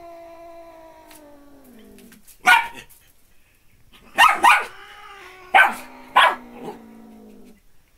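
Small dog barking at a kitten: a long drawn-out howl falling in pitch that fades out about two seconds in, then five sharp yipping barks, two of them in quick pairs.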